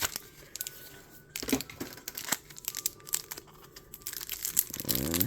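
Foil trading-card booster pack wrapper crinkling and tearing as it is opened by hand, in many short irregular crackles.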